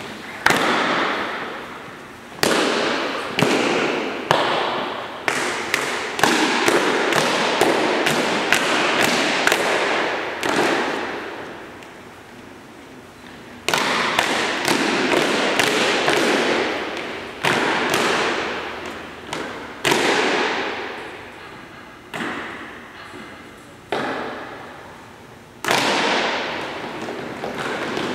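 Drill team's boots stamping in unison on a hangar floor: a series of sharp stamps, each ringing out in a long echo through the hangar, with a quick run of them in the middle and a short lull after it.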